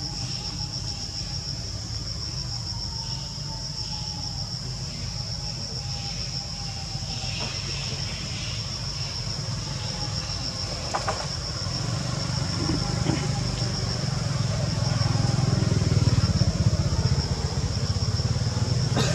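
A steady high-pitched insect drone over a low motor engine rumble, which grows louder in the last few seconds.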